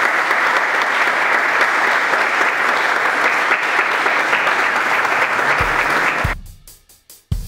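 Audience applauding steadily, cut off abruptly about six seconds in. Drum beats of music come in just before the cut and carry on near the end.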